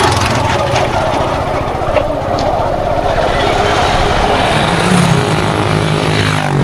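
Steady motor-vehicle engine and road noise while travelling along a road, with a low engine hum growing stronger over the last couple of seconds.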